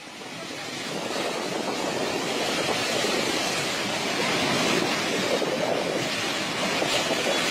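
Steady rush of fast-flowing floodwater in a swollen river channel, fading in over the first second or so.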